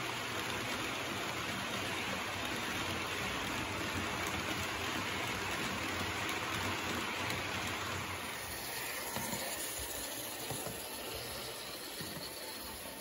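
H0 scale model freight train of covered hopper wagons rolling along the layout track: a steady hiss and rattle of small wheels on the rails, easing off after about eight seconds as the wagons move away.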